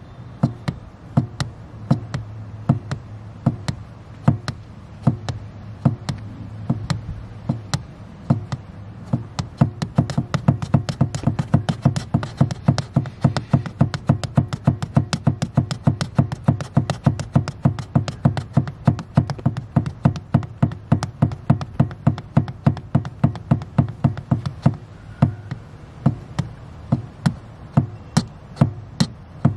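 Rhythmic tapping and knocking as a slippered foot pumps a car's accelerator pedal, two or three taps a second at first and quickening after about nine seconds, with a low steady hum underneath.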